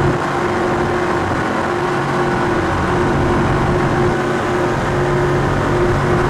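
Twin 1200 hp Mercury engines of an MTI 48 offshore powerboat running steadily at speed: an even engine drone with no change in pitch, under a rush of wind and water.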